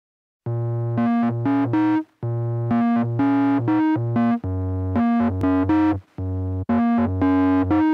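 Background music: an electronic keyboard melody in short repeating phrases over low bass notes, starting about half a second in and breaking off briefly three times.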